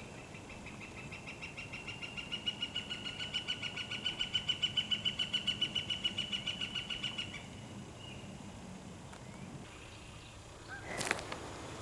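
A long, high trill of rapid, evenly repeated notes on one steady pitch from a wild animal call, growing louder and then stopping about seven seconds in. A sharp click follows near the end.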